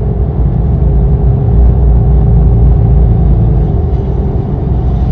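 Road noise in the cab of a lifted Chevy Silverado 1500 on mud tires at highway speed: a steady low rumble with a constant tire hum.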